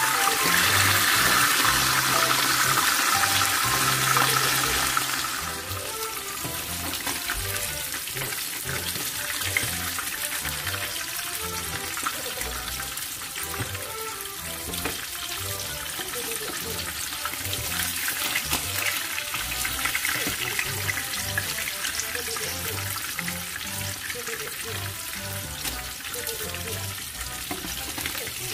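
Pieces of dorada (sea bream) shallow-frying in hot oil: a steady sizzle, louder for the first five seconds or so and then dropping to a lower level. Background music plays along.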